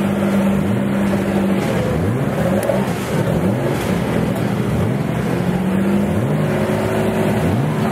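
Historic car engines running and revving, with repeated rising sweeps in pitch over a steady engine drone.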